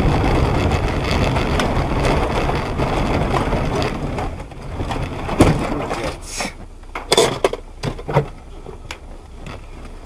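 Loud, rushing road and vehicle noise, then a sharp impact about five seconds in and several more knocks and crunches over the next few seconds: a vehicle collision.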